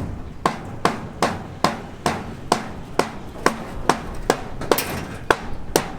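A hammer striking repeatedly at a steady pace of a little over two blows a second, each blow sharp and ringing briefly.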